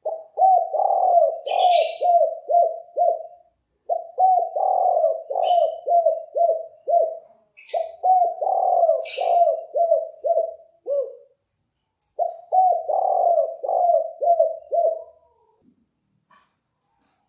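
Spotted dove cooing its 'kuk 4' song type: four phrases, each a quick run of coo notes about three and a half seconds long, with short pauses between them. Brief high chirps from another small bird come in a few times between and over the coos.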